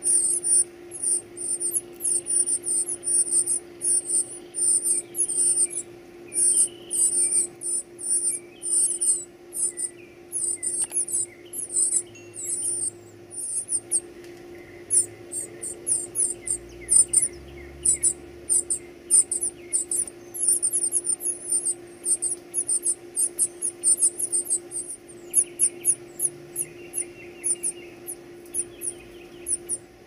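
Northern cardinal nestlings begging for food: rapid, very high-pitched squeaky calls, two or three a second, with a brief pause about halfway through. A steady low hum runs underneath.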